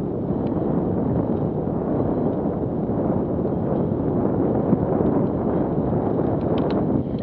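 Wind buffeting an action camera's microphone over the steady rumble of mountain bike tyres on a rough, muddy track, with a few light clicks near the end.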